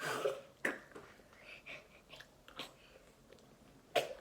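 Eating sounds: chewing and small mouth and food-handling noises, with a short burst of noise at the start and a sharp click about four seconds in.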